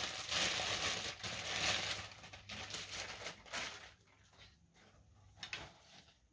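Clear plastic bag crinkling as a monopod is slid out of it, then a few light taps and clicks as the monopod is handled.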